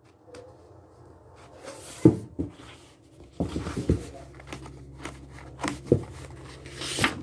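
Handling of a picture book at close range: scattered paper rustles and soft knocks, thickest around the middle.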